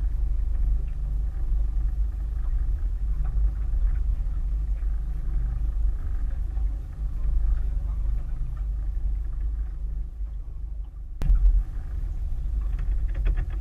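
Steady low rumble of the boat's outboard motor, muffled by a waterproof camera case. A single sharp knock comes about eleven seconds in, and a quick run of clicks follows near the end.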